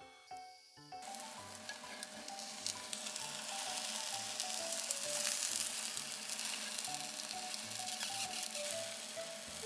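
Egg frying in a rectangular tamagoyaki pan: a steady sizzle that comes up about a second in while the rolled omelette cooks layer by layer.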